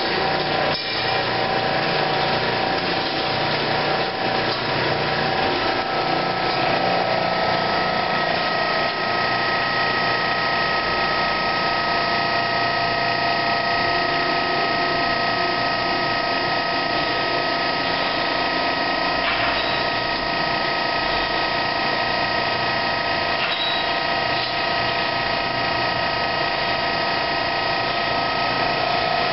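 Chayote washing and waxing machine running steadily: a constant motor whine over continuous mechanical noise.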